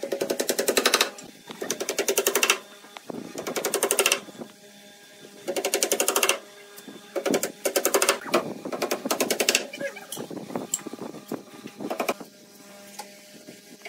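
Hammer tapping on a wooden cabinet panel in quick runs of rapid strikes, several runs with short pauses between them.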